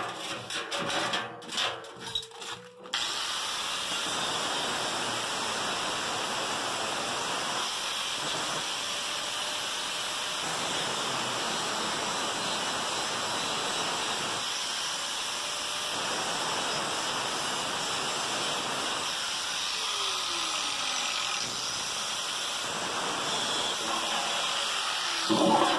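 Handheld electric angle grinder with a cutting disc slicing through the steel drum of a washing-machine spin basket, running steadily from about three seconds in until just before the end. A few knocks and clatter come before the cut starts.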